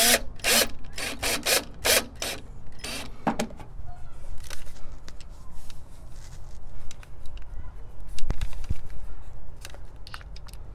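Cordless drill driving a self-tapping screw into a rain downspout in a quick series of short trigger bursts over about three seconds, then stopping. Afterwards there are only scattered faint clicks and a couple of dull knocks.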